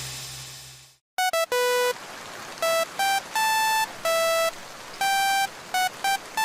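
A hissing, noisy sound effect dies away within the first second, then a run of short electronic beeps at changing pitches follows, like a simple square-wave tune.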